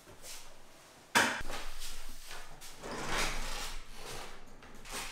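Handling noises: a sharp knock about a second in, then scraping and rustling, with another swell of rustling around three seconds.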